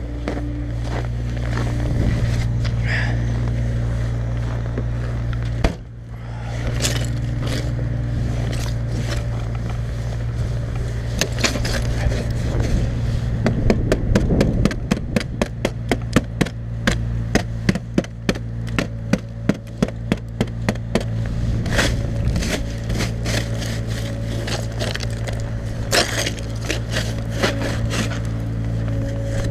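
Stiff-bristled snow brush sweeping and scraping snow and frozen crust off a car's trunk and rear window in many quick scratchy strokes, fastest through the middle stretch. Underneath runs a steady low engine hum.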